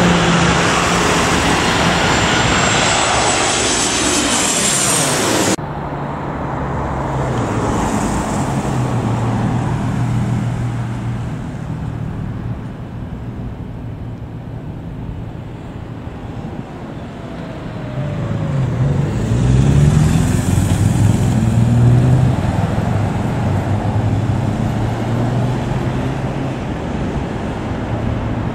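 Jet engines of Boeing 737 airliners on landing approach. The first jet's loud rush of engine noise, with a high whine, cuts off abruptly about five seconds in. A second jet follows, steadier, swelling louder about twenty seconds in with a falling pitch as it passes.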